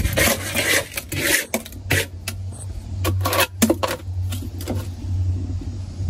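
Frost and ice being scraped off the inside liner of a chest freezer with a hand scraper: a string of short scraping strokes, heavier in the first second and again around three to four seconds in, over a steady low hum.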